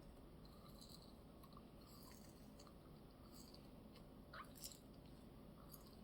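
Faint close-up chewing of a crisp piece of cake, with soft crunching clicks scattered through and a small cluster of crackles a little after four seconds in.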